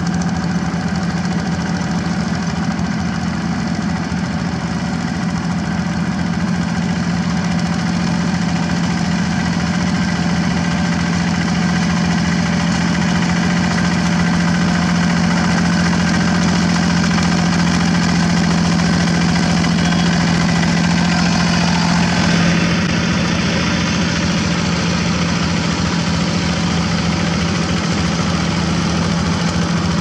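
Single-cylinder diesel engine of a Quick G1000 two-wheel walking tractor running steadily under load while ploughing a wet rice field. Its note shifts slightly about two-thirds of the way through.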